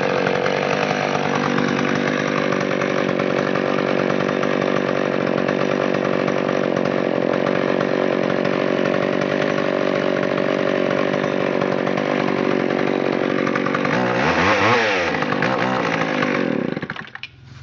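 McCulloch 650 two-stroke 60 cc chainsaw running steadily; about fourteen seconds in its engine speed dips and climbs again, and it stops near the end.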